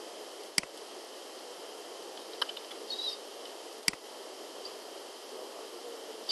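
Clicks from a computer mouse and keyboard during form entry: two sharp clicks about three seconds apart, with a few fainter clicks between, over a steady background hiss.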